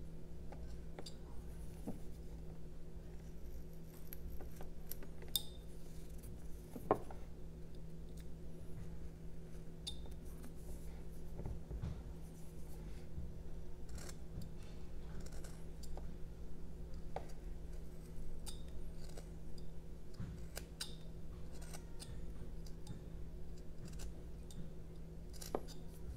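Small carving knife slicing into a block of jelutong: scattered short, crisp cuts and snicks as small chips come away, with no regular rhythm.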